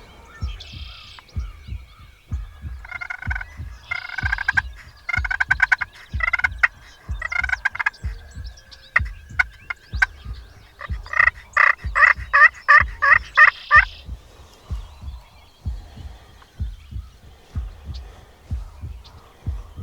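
Wild turkey calls: bursts of gobbling and series of yelp-like notes for most of the stretch, ending a few seconds before the end. Under them runs a steady low thumping about twice a second, like a heartbeat.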